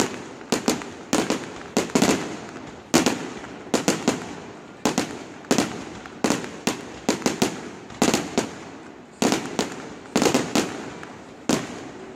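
Aerial firework shells bursting in quick succession: sharp bangs, often two or three close together, coming about every half second to a second, each followed by a fading echo.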